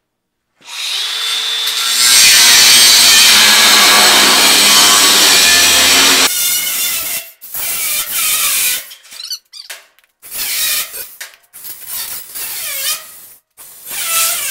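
DeWalt 20V Max cordless angle grinder with a 4½-inch cut-off wheel starting about half a second in, then loud as it cuts through the steel welds holding a trailer hinge. One unbroken cut of about four seconds, then a string of shorter cuts with brief pauses, the pitch dipping and recovering as the wheel bites into the weld.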